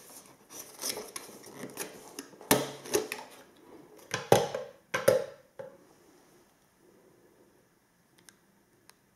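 Cardboard packaging insert rustling and knocking as a plastic GoPro Wi-Fi Remote is worked loose from it, with several sharp clicks and knocks in the first half. Then quiet except for two faint ticks near the end.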